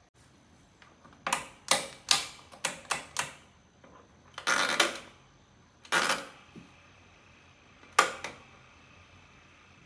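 A run of sharp mechanical clicks and clacks in an uneven cluster, then two short scraping rasps, then a final pair of clicks near the end.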